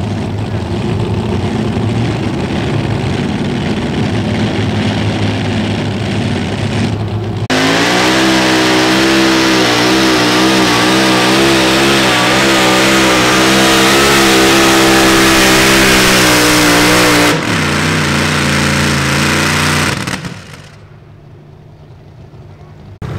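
Multi-engine modified pulling tractor's engines running at the line, then at full throttle with a loud, steady drone for about ten seconds while pulling the sled. The sound drops off abruptly, and near the end only a much quieter engine sound remains.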